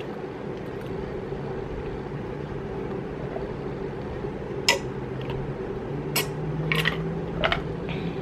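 Ice cubes clinking against the inside of a tall drinking glass of iced tea as it is tipped up to drink, with four sharp clinks in the second half, the first the loudest. A steady low hum runs underneath.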